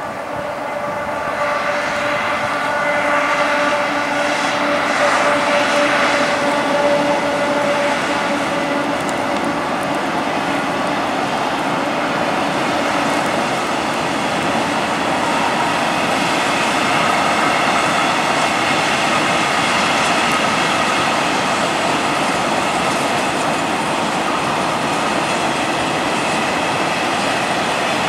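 Freight train of open coal gondola wagons rolling past, wheels clattering steadily over the rail joints. A steady tone sounds over the first ten seconds or so, then fades into the even rumble of the wagons.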